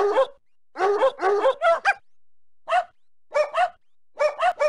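A dog barking in quick runs of two to five barks, with short pauses between the runs.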